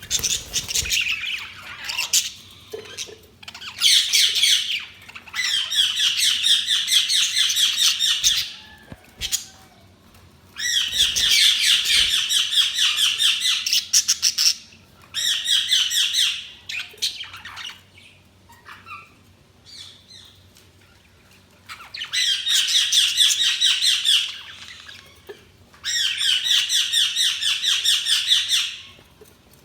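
Budgerigars chattering in bouts of rapid, squawky chirps a few seconds long, with short quieter gaps between bouts.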